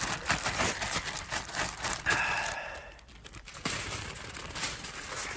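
Aluminium foil crinkling and rustling as it is handled, with a brief lull about three seconds in.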